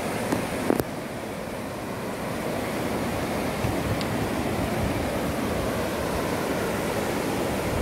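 Fast-flowing river rushing over rapids, a steady rush of water. Two brief sharp knocks come within the first second.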